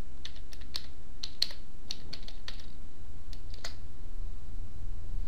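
Typing on a computer keyboard: about a dozen quick, uneven keystrokes over the first three and a half seconds, then the typing stops. A steady low hum runs underneath.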